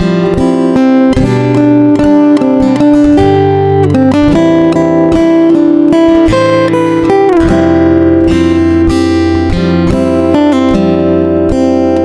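Background music with acoustic guitar, plucked and strummed, playing sustained chords and notes.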